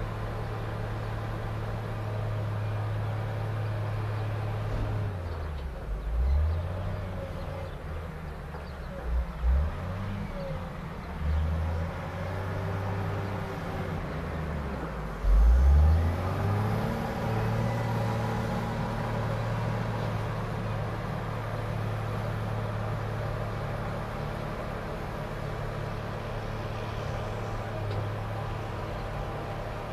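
Volvo L60E wheel loader's diesel engine working on a maize silage clamp, running steadily under load. Between about five and seventeen seconds in its pitch drops and sweeps back up several times, with a few short louder moments, as the loader changes direction on the heap, then it settles back to steady running.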